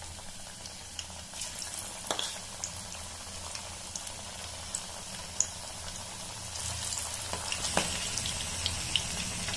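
Marinated chicken pieces deep-frying in hot oil, a steady sizzle with scattered pops and crackles. It grows louder about two-thirds of the way through as more pieces go into the oil.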